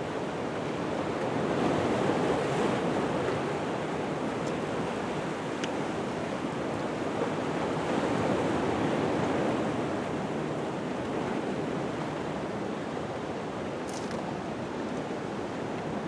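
Small sea waves washing in, a steady rush of surf that swells about two seconds in and again around eight seconds.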